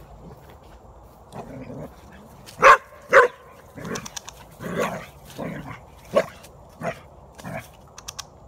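Australian Shepherd/border collie mix dog barking at a groundhog it has cornered. Two loud barks come half a second apart about three seconds in, followed by a run of shorter, quieter barks.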